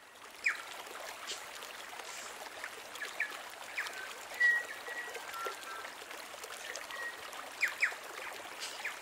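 A stream running steadily, with birds calling over it: scattered short sharp chirps and a few brief, clear whistled notes.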